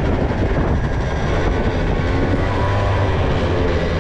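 50cc scooter engine running steadily under way, mixed with wind rushing over the microphone.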